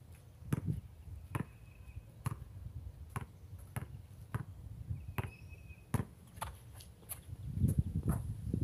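Basketball bouncing on a concrete court: sharp slaps about once a second, with a rougher stretch of low rumble and knocks near the end.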